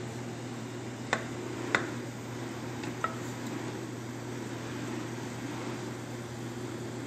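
A utensil knocking against a metal cooking pot three times, about a second in, just under two seconds in and about three seconds in, the second knock the loudest, as chicken and vegetables are mixed. A steady low hum runs underneath.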